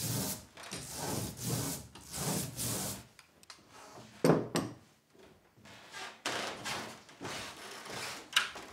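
Hand ink roller (brayer) rolled back and forth over sticky printing ink to ink a woodcut, a repeated rasping stroke about twice a second for the first three seconds. A single sharp knock comes about four seconds in, and softer rubbing strokes follow later.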